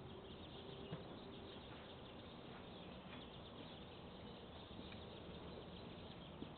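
Near silence: faint outdoor background noise.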